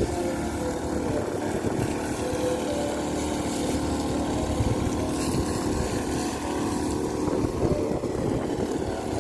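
Small 52 cc two-stroke petrol engine of a floating irrigation pump running steadily.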